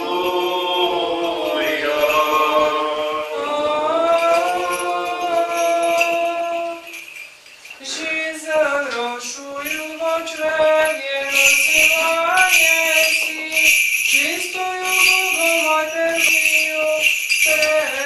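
Orthodox liturgical chant sung by unaccompanied voices. About eleven seconds in, the small bells of a swung censer start jingling over the singing in a steady rhythm, about twice a second.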